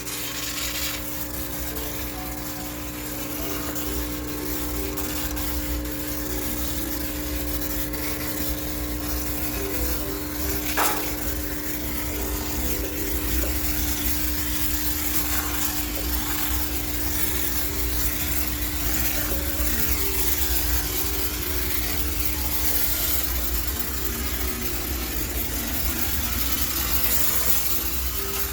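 High-pressure steam sterilizer running on a washing machine: a steady hiss over a constant hum.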